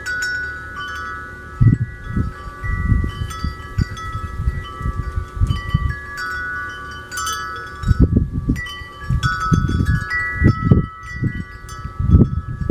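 Wind chimes ringing, many overlapping sustained notes struck at irregular moments, with irregular low thumps underneath.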